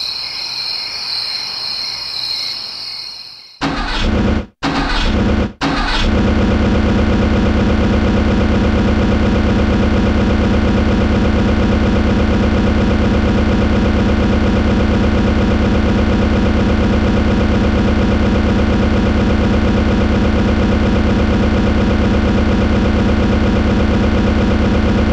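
Crickets chirping for the first few seconds, then a grain mill (chakki) machine starts up, cutting out twice briefly, and runs on with a loud, steady low hum.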